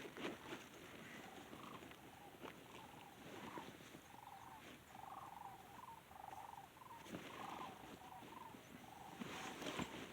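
A run of many short, rattling animal calls, close together.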